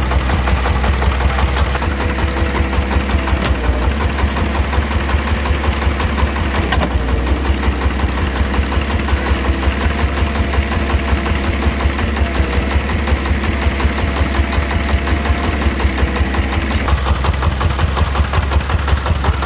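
Single-cylinder diesel engine of a công nông farm truck idling with a steady, rhythmic chugging at about five beats a second.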